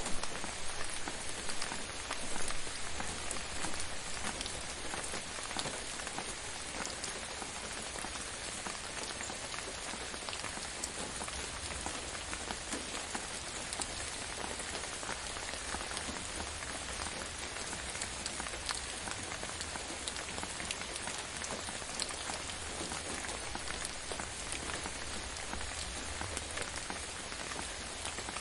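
Steady gentle rain falling on a surface, a dense even patter of many small drops, a little louder in the first few seconds.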